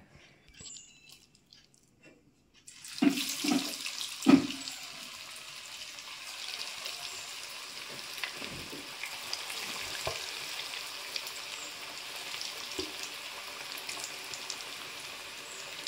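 Marinated chicken pieces dropped into hot oil in a kadai, setting off deep-frying sizzle that starts suddenly about three seconds in and then runs on as a steady, dense hiss. Soft plops come as pieces go in, a cluster near the start of the frying and a few more later. The oil has been brought close to full heat, so the pieces sizzle hard on entry.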